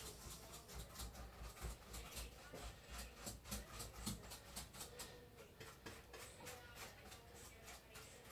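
Small paintbrush scrubbing electronic keyboard parts during cleaning, a quick run of light scratchy strokes several times a second.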